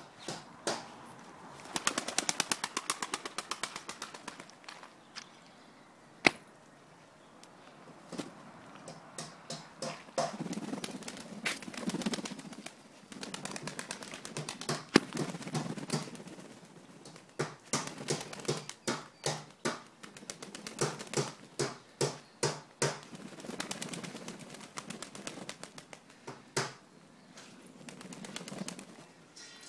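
Flock of pigeons cooing, with repeated bursts of wings flapping and clattering.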